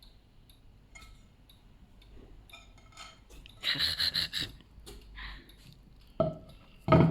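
Handling sounds from unpacking a new microwave oven: scattered light clicks, a brief burst of scraping and rustling about four seconds in, and two sharp knocks near the end.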